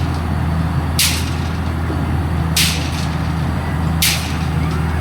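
Pile-driving rig's engine running steadily, with a short sharp hiss three times, about every one and a half seconds, as the hammer cycles.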